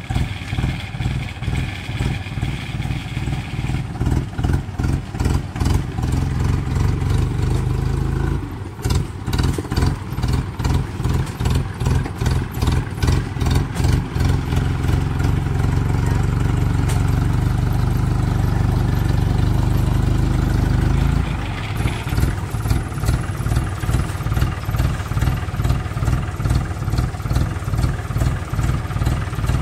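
Engine of a small tracked rice-hauling tractor, loaded with sacks of rice, working hard as it climbs a steep dirt ramp. It runs heavy and steady, then drops suddenly to a lighter, evenly chugging idle about 21 seconds in, once it is at the top.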